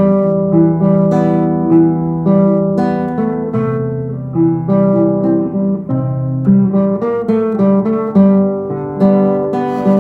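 Acoustic guitar playing an instrumental tune: plucked and strummed chords with a melody on top and a new note or chord about every half second.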